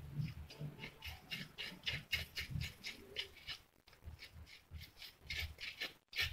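Metal spoon scraping soft aloe vera gel off the inside of a leaf in repeated short, wet strokes, two or three a second, with soft low knocks of hands and leaf against the bowl.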